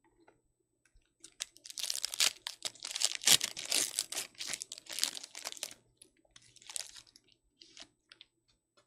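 Foil trading-card pack wrapper being torn open and crinkled: a dense burst of crackling starts about a second in and lasts several seconds, then a few light rustles.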